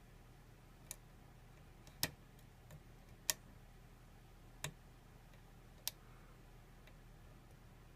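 Sharp metallic clicks of lock picking tools working the pins of a KIK lock cylinder: about six faint clicks at irregular intervals of roughly a second, the loudest two about two and three seconds in.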